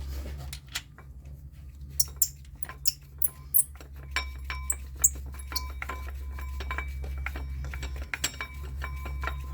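Metal clinks as the nut goes onto the new idler pulley's bolt, then from about four seconds in a ratchet wrench clicking steadily as the nut is run down, with a light metallic ring.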